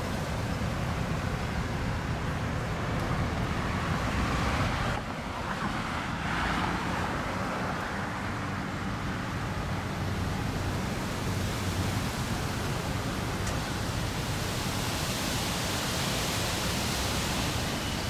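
Road traffic: cars passing on a busy multi-lane road, with wind noise on the microphone.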